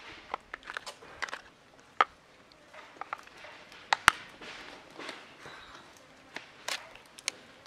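Irregular sharp clicks and cracks with soft scuffing rustles in between, as macaques shift about and handle things on a rock. The loudest cracks come about two seconds in and just after four seconds.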